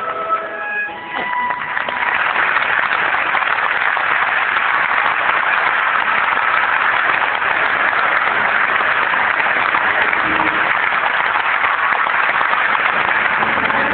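Audience applauding steadily in a theatre, after the last notes of the stage music in the first second or so.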